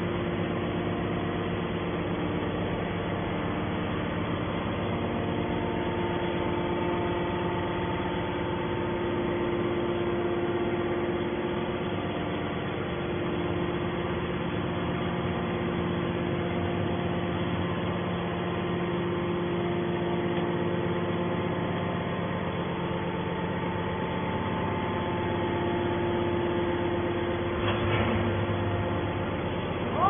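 Hydraulic scrap metal baler's power unit running steadily: an even machine hum with several held tones. A short knock sounds near the end.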